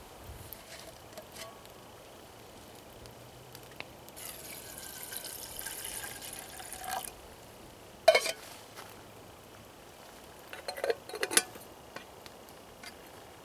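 Liquid pouring or sloshing into a metal camp pot or cup for about three seconds. A few seconds later come several sharp metal clinks of camp cookware being handled.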